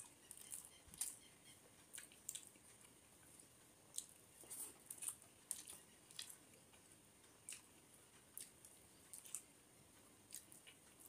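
Close-miked eating sounds: mouth-chewing and a bare hand squishing and mixing rice on a metal plate, heard as faint, irregular wet clicks and crackles.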